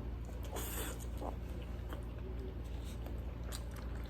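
Soft chewing and mouth sounds of someone eating, a few faint clicks among them, over a steady low hum.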